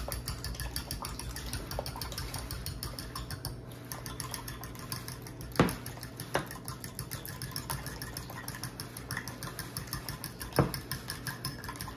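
Fork beating raw eggs in a glass bowl: a fast, steady clicking of metal against glass, with three louder clinks along the way.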